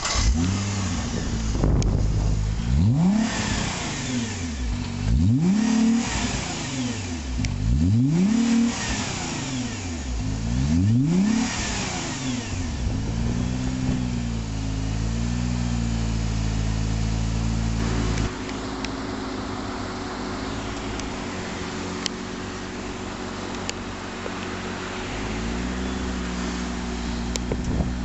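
Nissan GT-R's twin-turbo V6 revved hard four times while stationary, each rev climbing and falling back. A couple of lighter blips follow before it settles into a steady idle, with one more light blip near the end.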